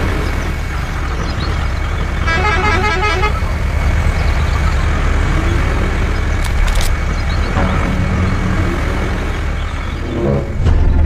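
A mini model truck's motor running steadily with a low rumble, and its horn sounding in a rapid stutter for about a second, roughly two seconds in. A few brief clicks come about halfway through.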